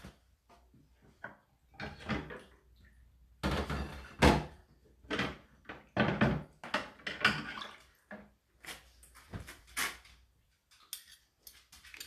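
Dishwasher racks and cutlery tray being handled: an irregular run of clatters and knocks from the sliding racks and rattling cutlery. The loudest knock comes about four seconds in, with lighter ticks and clinks toward the end.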